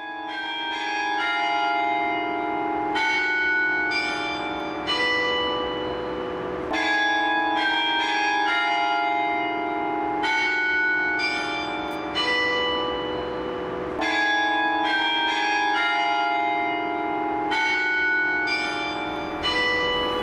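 Church bells ringing a short sequence of strokes that repeats about every three and a half seconds, each bell ringing on under the next stroke.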